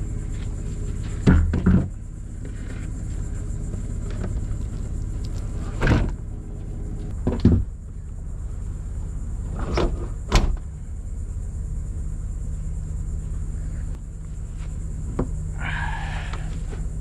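A stand-up paddleboard being loaded onto a pickup truck and strapped down: several sharp knocks and thumps as the board hits the truck, over a steady low rumble.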